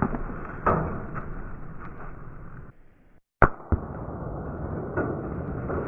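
A sharp blast inside a steel drum about three and a half seconds in, with a second crack a moment later, just after a brief drop to near silence. A steady rushing noise fills the rest, with a couple of fainter pops.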